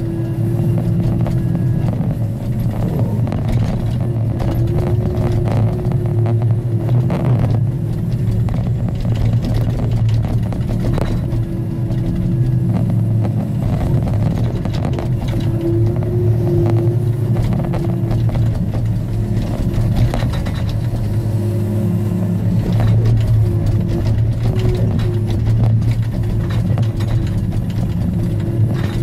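Timbco feller buncher's diesel engine running steadily under hydraulic load while the felling head works logs, with a few sharp knocks scattered through.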